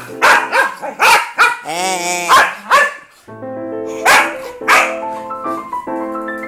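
Dogs barking in quick bursts during rough play, with one drawn-out call that rises and falls about two seconds in. The barking stops briefly around three seconds, then comes back with two more barks over background music with steady sustained notes.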